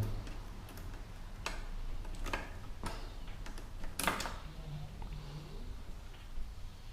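A handful of sharp metal clicks and clinks from tools and bike parts being handled, the loudest about four seconds in.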